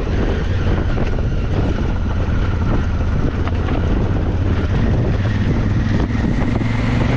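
Enduro motorcycle engine running steadily under way, with wind buffeting the microphone.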